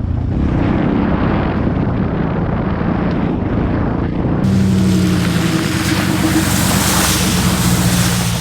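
1998 Dodge Ram 2500 pickup's engine running steadily while driving a muddy trail. About halfway through, a loud rushing hiss suddenly joins in, like water spraying as the truck goes through a water-filled hole.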